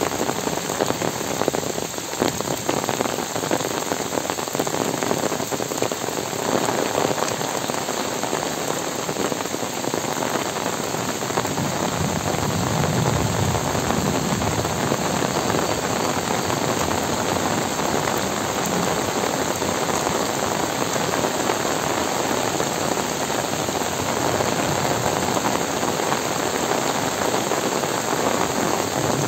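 Heavy rain falling steadily on trees, leaves and wet ground: a dense, even hiss of rain with individual drops ticking close by.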